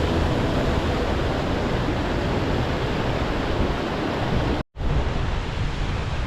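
Steady rush of a fast mountain river tumbling over waterfalls, an even roar of water that cuts out for a split second about three-quarters of the way through.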